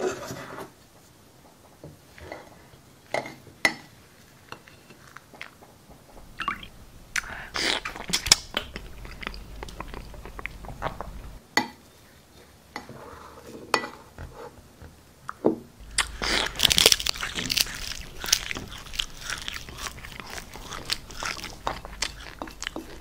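A paintbrush swishing and scraping through thick wet paint in a ceramic plate, with wet squelches and sharp clicks in irregular bursts. It gets busier and louder about two-thirds of the way in.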